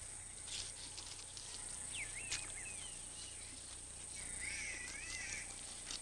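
Faint rainforest-floor ambience: a steady high insect drone, with two short warbling bird calls, one about two seconds in and a longer one near the five-second mark, and a few faint rustles in the leaf litter.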